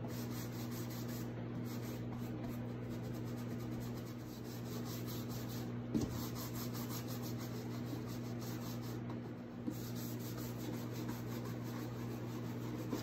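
Round wax brush scrubbing clear furniture wax over a chalk-painted book cover, a steady brushing rub with a faint low hum beneath it. A light knock comes about six seconds in.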